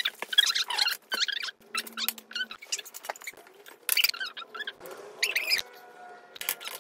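Plastic packaging crinkling and small plastic and card parts clicking as they are unwrapped and handled, in quick, irregular snaps and rustles.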